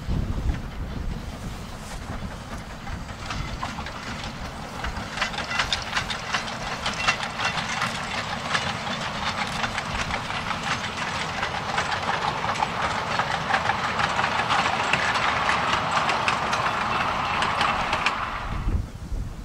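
Narrow-gauge steam train passing: the locomotive and its coach and freight wagons roll by, their wheels clattering in a rapid run of clicks over the rail joints, with a hiss of steam. The sound cuts off suddenly near the end.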